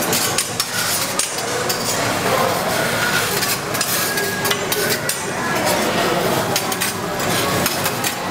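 Metal teppanyaki spatulas scraping and clicking against a steel griddle in quick, irregular strokes, over a steady hiss.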